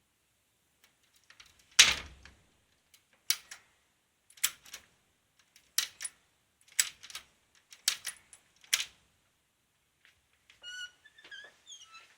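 A wooden door: one heavy thud about two seconds in, then a run of sharp wooden knocks or clicks about once a second. Short high squeaks follow near the end.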